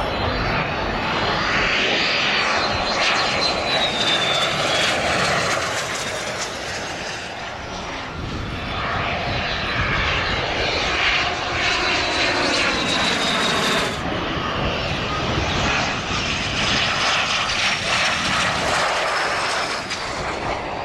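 Alpha Jet trainers' twin Larzac turbofan engines running on landing approach with gear down: a steady jet rush with a high whistle that slides down in pitch as each jet passes.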